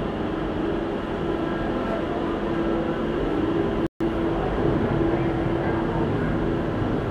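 Disney Skyliner detachable gondola cabin rolling slowly through the station, heard from inside the cabin: a steady mechanical rumble with a low hum from the station's drive wheels and rail. The sound cuts out briefly about four seconds in.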